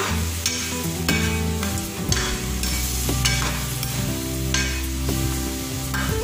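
A metal ladle stirring and scraping chicken and upo (bottle gourd) sautéing in a pot, with scrapes about every half second to second over a steady sizzle. Background music with sustained low notes plays underneath.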